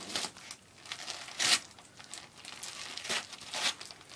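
Wrapping paper crinkling and tearing as a dog rips open a present, in several rustling bursts, the loudest about a second and a half in.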